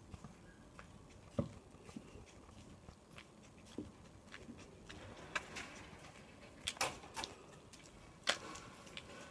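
Footsteps of someone walking on asphalt: faint, irregular clicks and knocks, a few sharper ones in the second half.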